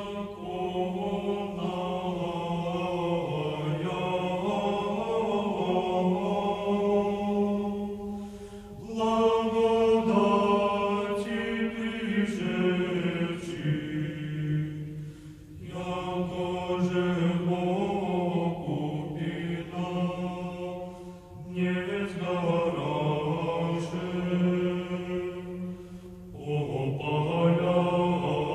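A choir singing slow Orthodox chant in long held phrases over a low sustained bass line, with short breaks between phrases.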